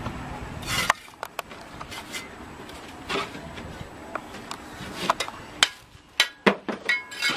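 Clay bricks and mortar being worked by hand: a string of sharp, irregular knocks with a few short scrapes as the bricks are set and tapped down on a block wall, the loudest knocks near the end.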